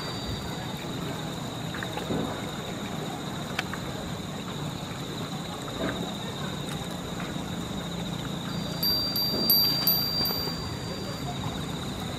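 Outdoor ambience: a steady high-pitched whine runs throughout, and a few short ringing tones sound about nine to ten seconds in, along with scattered faint clicks.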